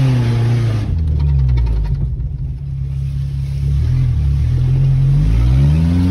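A 1997 Nissan's engine is driven along a rough dirt trail, heard from inside the cab. The engine note rises and falls, drops to a lower steady drone about a second in, and climbs again near the end as the driver gets back on the throttle.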